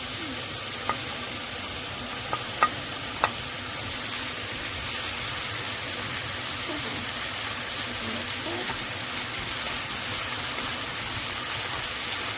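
Food sizzling steadily in a frying pan, with a few sharp clicks of a utensil against the pan in the first few seconds.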